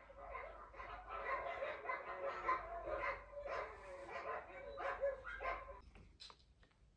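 A dog barking repeatedly in a rapid run, stopping about six seconds in.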